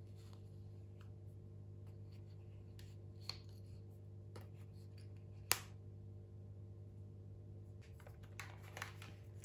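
Faint clicks and scraping of plastic as a part is worked loose at the end of a Dyson V15 cordless vacuum's cleaner head, with one sharp click about halfway through. A steady low hum runs underneath.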